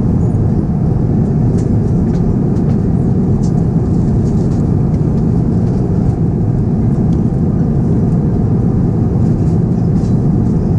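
Steady airliner cabin noise in flight inside an Airbus A350-900: an even low rush of airflow and engine noise, with faint small ticks now and then.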